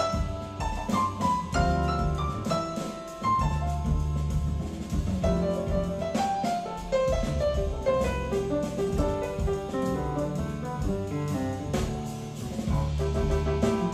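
Instrumental jazz passage with no vocals: piano notes over double bass and drum kit.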